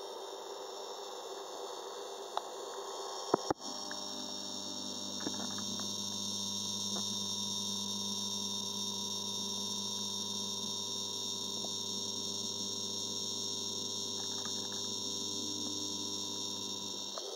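Steady electrical hum made of several even tones, with two sharp clicks about three and a half seconds in, after which the hum's tone shifts slightly.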